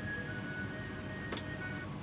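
Background music with held, sustained notes, and a single sharp click about a second and a half in.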